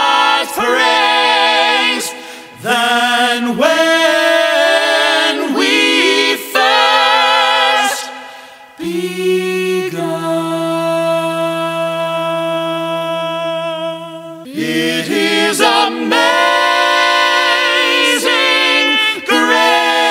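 Mixed-voice a cappella vocal quartet, men and women, singing close four-part harmony with a high male tenor lead. The singing goes in phrases with brief breaks; about nine seconds in the group settles into a long held chord for some five seconds before the phrases resume.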